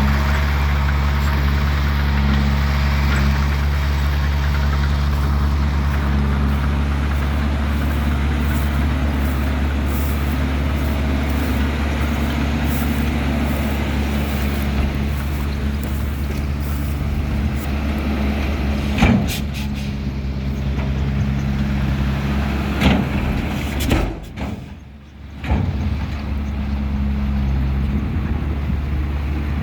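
Heavy diesel engine of a dump truck or excavator running steadily at a constant low hum. Two sharp knocks come about two-thirds of the way in, and the sound drops away briefly near the end.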